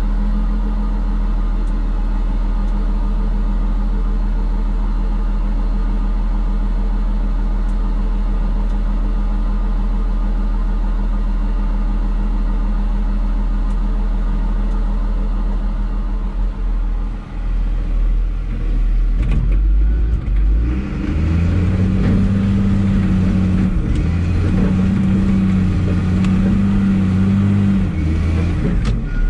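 Diesel engine of an articulated rock truck running steadily, heard from inside its cab. About two-thirds of the way through it gives way to a wheel loader's diesel engine heard from its cab, louder and rising and falling as the machine works.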